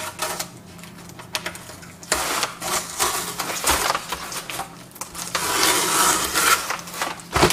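Masking tape and masking paper being peeled off a freshly spray-painted car grille: the tape rips away and the paper crinkles. It is sparse at first, then comes in dense crackling bursts from about two seconds in.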